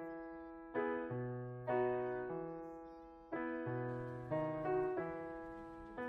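Background music: a slow, soft keyboard passage of piano-like chords, each struck and left to fade before the next.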